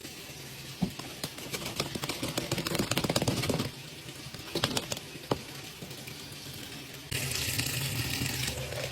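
Quick clattering and rustling handling sounds, a few sharp clicks, then from about seven seconds in a sudden steady rushing hiss.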